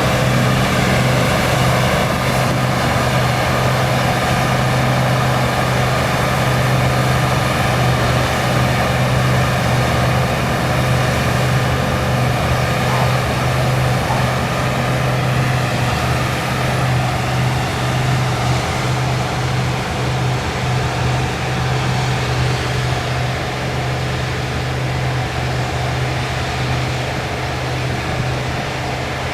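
Combine harvester engine running steadily: a loud, even drone with a strong low hum, easing off slightly over the last third.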